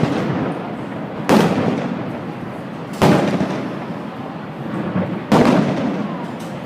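Fireworks shells bursting: three sharp booms about two seconds apart, each trailing off in a long rumbling echo.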